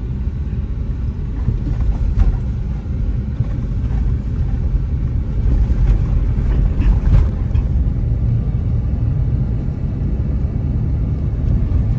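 Car driving along a road: a steady low rumble of engine and tyres, with a few faint brief knocks from bumps.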